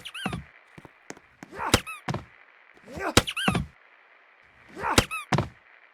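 52-inch Sony Elite ceiling fan running with a repeating knock and a short rising-then-falling squeak, about every one and a half seconds.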